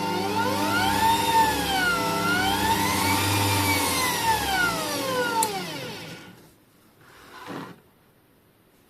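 Variable-speed 800 W bench grinder motor running, its whine rising, dipping, rising again and then falling as the speed changes. It winds down to a stop about six seconds in, and a short, faint whoosh follows.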